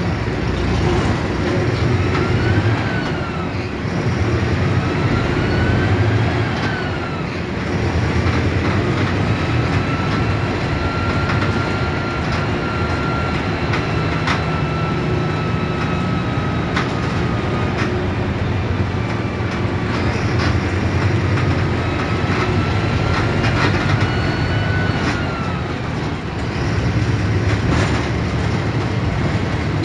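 Mercedes-Benz OF 1721 BlueTec 5 bus running, its engine rumble under a whine that climbs and falls in pitch as the bus speeds up and slows, several times over. A few sharp clicks or rattles sound along the way.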